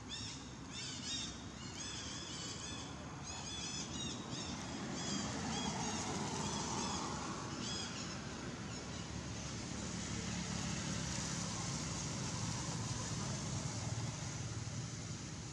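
A motor vehicle on the road, its engine and tyre noise rising about five seconds in and holding steady. Over the first half comes a series of short, high chirping calls, several a second, that stop about eight seconds in.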